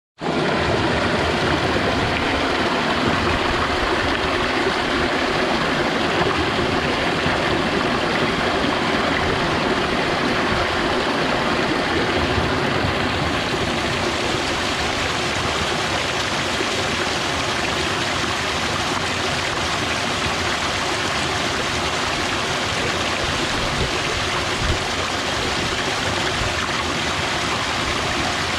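Mountain stream rushing and splashing over rocks, a steady full sound of flowing water without a break.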